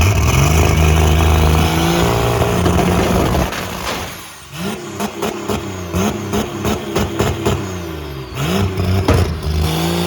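Turbocharged, race-prepared car engine revved hard. It is held at high revs with a rising pitch, drops away about four seconds in, then is blipped repeatedly with a rapid string of sharp pops. It rises again near the end.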